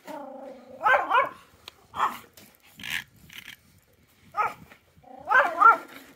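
Pomeranian growling low for about a second, then barking in a run of short, sharp barks, some coming in quick pairs.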